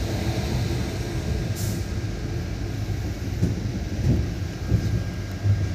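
A train running along the track, heard from on board: a steady low rumble of wheels on rail with irregular heavier knocks. A brief hiss comes about a second and a half in.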